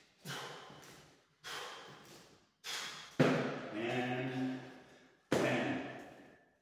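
A man breathing hard and grunting through burpees: forceful exhales about every second or so. A sharp thump a little past three seconds runs into a long voiced groan.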